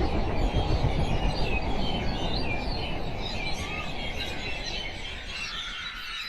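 Birds chirping, many short rising and falling chirps, over a low rumble that fades away steadily.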